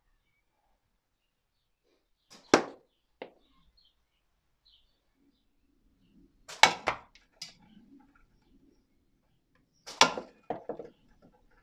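Three slingshot shots striking a hanging tin can target in a cardboard catch box, about four seconds apart. Each is a sharp crack followed by a few smaller knocks as the ammo drops and the can swings on its chain.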